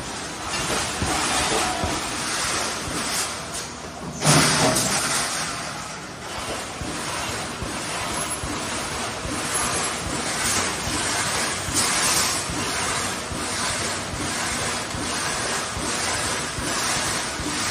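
Automatic reinforcing-mesh welding machine running: a continuous rushing, crackling noise, with a louder sudden clunk about four seconds in.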